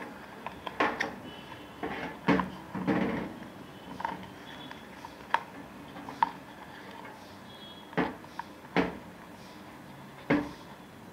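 Small plastic container being handled while a toggle switch is fitted inside it: irregular hard-plastic knocks, clicks and scrapes, about half a dozen sharper knocks scattered through.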